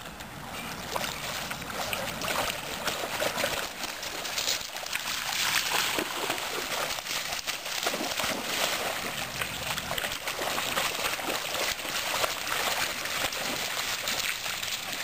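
Water splashing and sloshing as springer spaniels swim and run through shallow lake water, in a steady irregular patter of small splashes.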